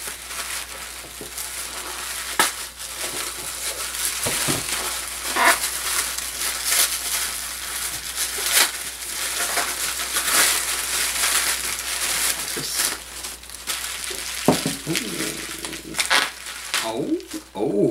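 Tissue paper and plastic bubble wrap crinkling and rustling as a wrapped gift is unwrapped by hand, with many sharp crackles throughout.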